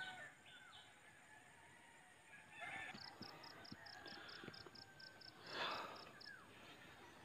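Faint rooster crowing in the distance: one crow fades out at the very start, and a fainter, long crow follows a few seconds later. From about three seconds in, a run of high ticks repeats about five times a second, and a short noisy rustle comes a little before the end.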